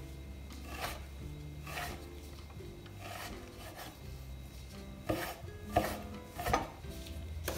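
Kitchen knife slicing a tomato on a wooden cutting board: about seven separate cuts, unevenly spaced, each ending in a short knock of the blade on the wood.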